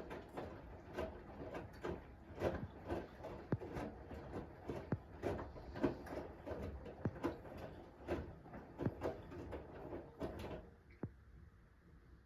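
Household objects being handled: a quick run of light clicks, knocks and rustles, with a few short squeaks, that dies away near the end.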